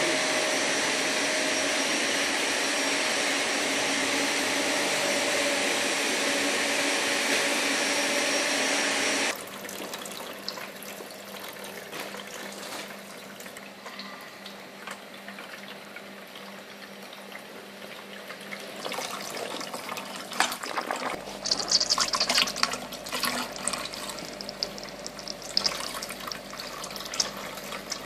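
Steady machinery noise for about the first nine seconds, then a sudden change to water from a thin hose nozzle running and spattering onto coated umbrella fabric. This is a water-repellency test. The water grows louder and splashier in the last third.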